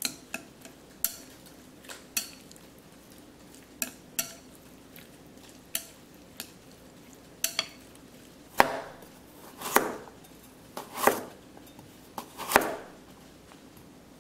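Chopsticks clicking and scraping against a ceramic bowl while stirring raw shrimp and squid in their marinade. From about eight and a half seconds in, four heavier knife strokes through a carrot onto a plastic cutting board, about a second and a half apart.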